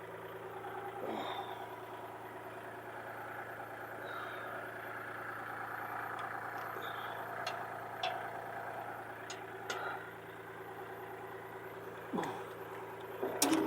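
An engine idling steadily, with a few light metallic clicks and a knock near the end.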